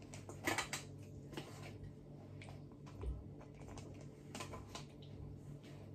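Faint scattered clicks and taps of kitchen tongs serving vegetables onto a plate, over a low steady hum.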